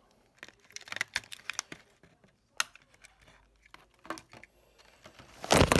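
Plastic blister packaging crinkling and small clicks as a diecast toy car is freed and handled, in short scattered bursts with quiet gaps, then a loud burst of rustling near the end.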